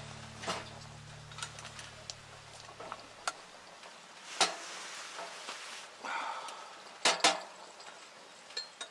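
Metal cookware and utensils being handled: scattered sharp clinks and knocks, with the loudest pair about seven seconds in. Background music fades out about three seconds in.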